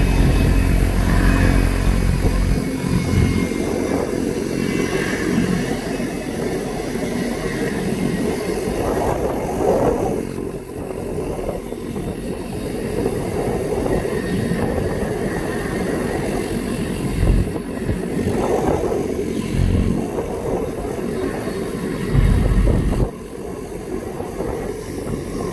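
An engine running, loudest and most pitched in the first few seconds, over steady outdoor noise. A few short low thumps come in the second half.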